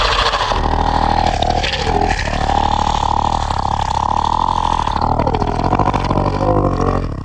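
Horror sound effect: a loud wavering wail over a low droning rumble. The wail's pitch sags and recovers twice.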